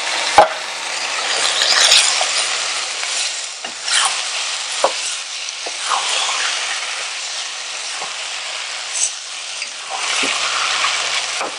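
Shredded chicken and canned diced tomatoes sizzling in hot oil in a saucepan while a wooden spoon stirs them, with scattered knocks of the spoon against the pan.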